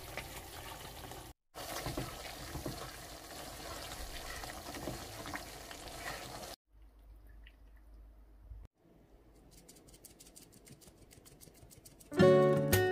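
Thick rosé cream sauce simmering and sizzling in a frying pan while spaghetti is stirred and tossed through it with wooden chopsticks, with a brief break about a second in. After about six and a half seconds it goes much quieter, and acoustic guitar music starts near the end.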